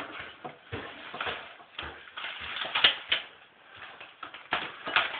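Irregular clicks, taps and rustles of things being handled close to the microphone, at an uneven, quickening pace with a sharper knock about three seconds in.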